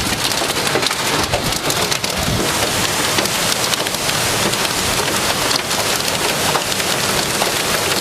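Heavy wind-driven rain and hailstones pelting a car during a severe supercell thunderstorm: a dense, steady hiss of rain with many sharp knocks from hail hitting the body and glass.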